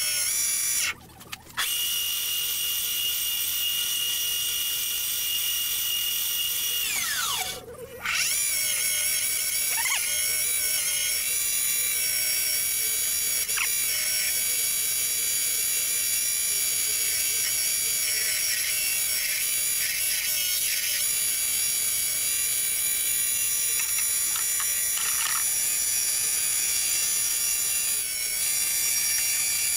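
Small benchtop wood lathe running with a steady high whine while a turning tool cuts a spinning cedar handle. About seven seconds in the whine falls in pitch and stops briefly, then the lathe runs again.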